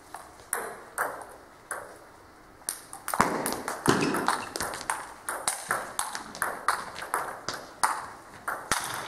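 Celluloid-type table tennis ball being struck by rubber bats and bouncing on the table, sharp clicks echoing in a large hall. A few single clicks come first, then from about three seconds in a quick, continuous run of strikes and bounces in a rally.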